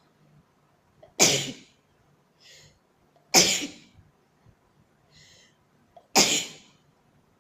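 A person sneezing three times in a fit, about two and a half seconds apart, each sneeze loud and sudden. A short, fainter breath comes between the sneezes.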